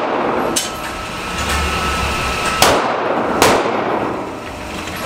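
Gunshots echoing in an indoor shooting range: a fainter shot near the start, then two loud shots less than a second apart a little past halfway, each with a short ringing tail.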